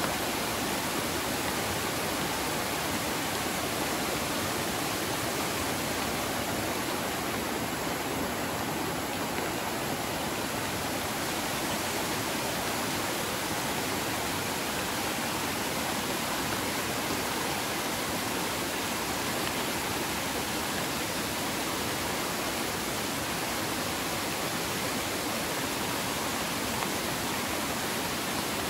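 Steady rushing of a river swollen by heavy rain and close to flooding: an even, unbroken sound of fast water tumbling over rocks.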